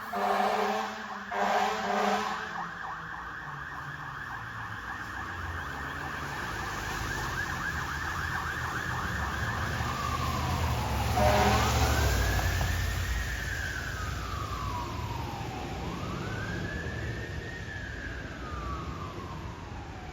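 Fire engine's warning devices: air horn blasts in the first couple of seconds, then a fast warbling yelp siren. About eleven seconds in there is another horn blast as the truck's engine rumble peaks, and the siren switches to a slow wail rising and falling about every four seconds.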